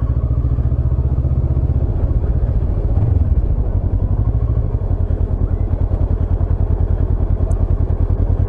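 Kawasaki motorcycle engine running while riding at low speed, a steady, evenly pulsing low exhaust throb.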